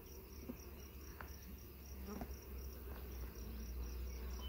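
An insect chirping in a quick, even, high-pitched pulse, about four to five chirps a second, with a few faint clicks of a hive tool working the frames of a wooden hive box and a steady low rumble underneath.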